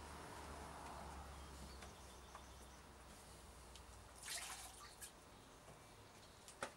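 Faint dripping of water being sponged out of a wet sheet of paper pulp on a papermaking screen, with a short splash about four seconds in and a sharp click near the end.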